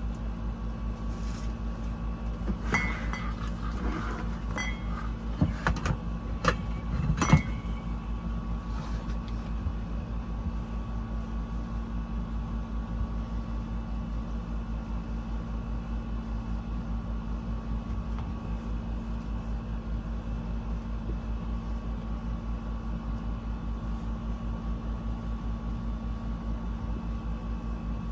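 A steady motor hum with a pulsing low throb runs throughout. Between about three and seven seconds in come a handful of sharp clicks and knocks from hanging curtains.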